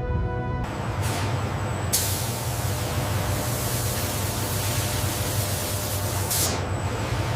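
Steady hiss of coolant spraying in a CNC milling machine, over a low machine hum. The hiss starts about a second in and grows brighter a second later.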